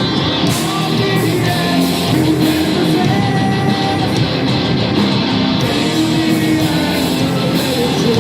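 Heavy metal band playing live: loud distorted electric guitars with a sung vocal line of held notes over the band.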